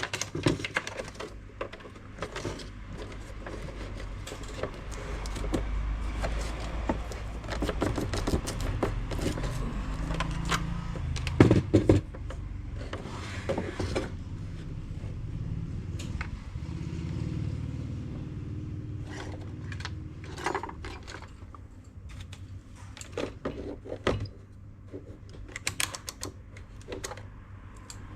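Scattered clicks, knocks and scrapes of small metal tools and parts being handled at a workbench, louder about twelve seconds in, over a steady low hum.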